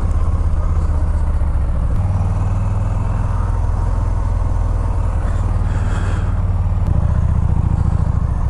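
Harley-Davidson motorcycle engine running while riding, a loud low exhaust note mixed with wind noise on the helmet-mounted microphone. The engine note changes about two seconds in and again about seven seconds in, as the throttle or gear changes.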